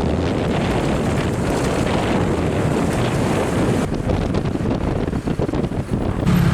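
Wind buffeting the camcorder's microphone as a steady, loud rumble while riding on a motorbike taxi.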